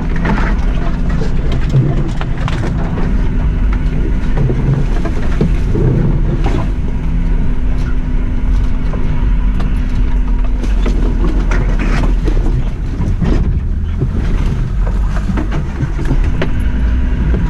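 Suzuki Jimny driving slowly along a rough, narrow green lane: its engine running with a steady drone, with irregular knocks and clatters from the car jolting over the uneven track, sharpest about two, six and twelve seconds in.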